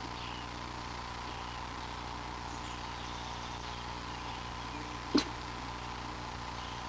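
A single short, sharp sneeze about five seconds in, over a steady background hum.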